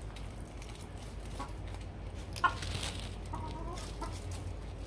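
Dominique hen clucking, a few short calls with one sharper, louder cluck about halfway through and a slightly longer call soon after.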